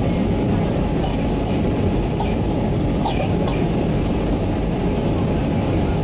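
Airbus A320 cabin noise during the approach: the steady rumble of the jet engines and rushing air, heard from a window seat over the wing. A few faint short clicks stand out in the first half.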